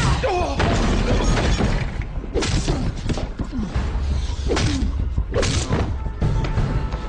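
Staged fight sound effects: several heavy punches and crashes, about four hits in all, with grunts between them, over background music.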